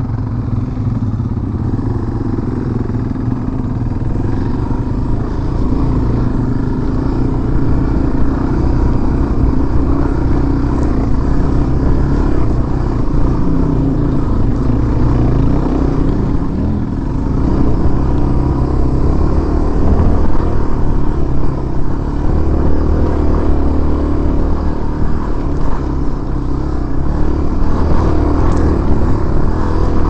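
Dual-sport motorcycle engine running under load as the bike climbs a rocky dirt trail, its note rising and falling with the throttle, heard close up from the handlebars.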